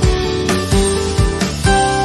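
Background music: plucked acoustic guitar with notes about twice a second, the last one ringing on near the end.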